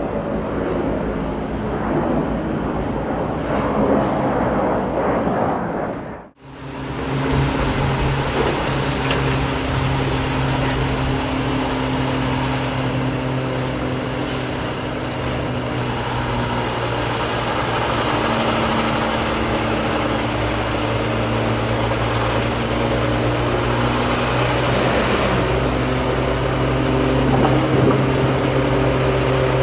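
Road traffic and train rumble at first, then, after a brief drop in level, a steady heavy diesel engine drone from rail maintenance equipment on the track. It grows a little louder near the end as the equipment approaches.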